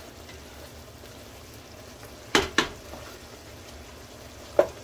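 Rice and stock boiling in a pot, a steady bubbling hiss, while a spoon stirs it; the spoon knocks twice against the pot about two and a half seconds in and once more near the end.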